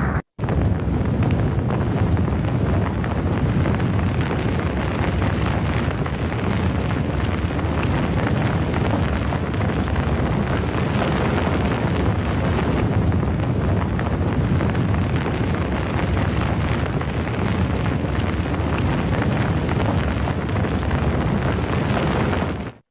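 Explosion sound effect in a long, steady, noisy rumble, heavy in the low end, with no separate blasts. It starts abruptly just after a brief dropout and cuts off suddenly near the end.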